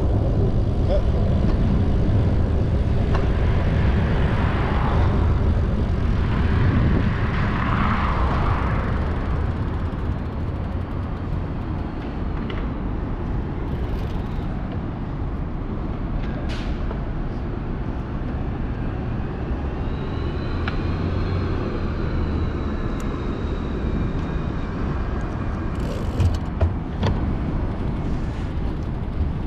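Downtown street traffic: a steady low rumble with vehicles passing close by in the first third, a faint wavering high whine a little past the middle, and a few sharp clicks near the end.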